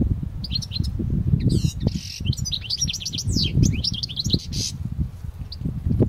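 A caged male Parva goldfinch (North African European goldfinch) sings a fast twittering phrase of quick rising and falling notes, starting about half a second in and stopping near the five-second mark, followed by one lone note. Under the song there is a louder, uneven low rumble of wind on the microphone.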